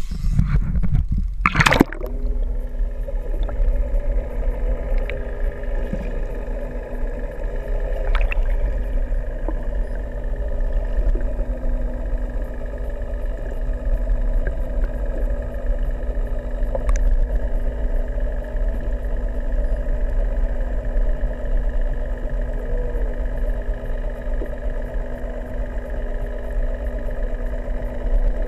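A camera plunging into the sea with a splash about two seconds in, then the steady drone of a boat engine heard underwater, with a constant hum over a low rumble of water against the camera housing.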